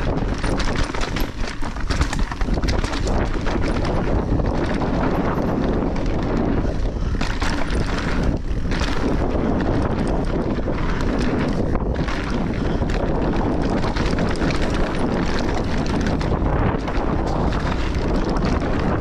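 Wind rushing over the camera microphone and mountain bike tyres rolling over a dirt trail at speed, with frequent rattles and knocks from the bike over bumps.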